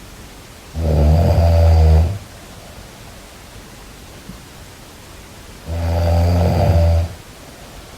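Snoring: two long, low snores about five seconds apart, each lasting over a second, over a steady background hiss.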